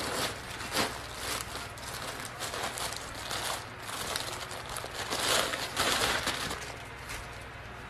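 Thin plastic bag crinkling and rustling as it is handled and picked open, in an irregular run of crackles, loudest about five to six seconds in.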